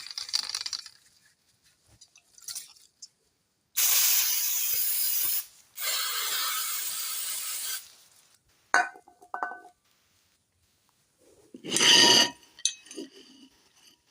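Two long hisses of an aerosol brake-cleaner can spraying the brake drums, followed by a few light metallic clinks. A short, louder rushing burst with a metallic ring comes near the end.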